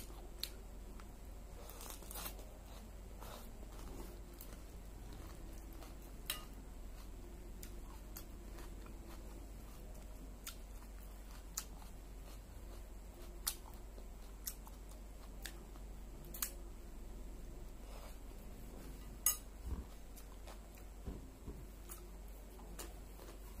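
Close-up crunching and chewing of crisp raw salad greens and vegetables, with scattered short sharp crunches and clicks over a faint low hum.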